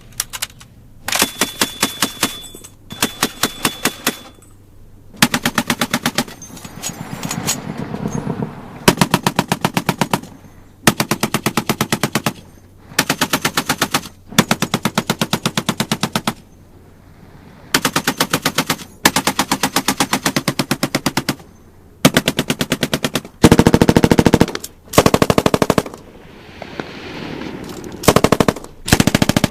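Automatic gunfire from a military firearm: about a dozen rapid bursts, each one to two seconds long, separated by short pauses, with an echo ringing out after some bursts.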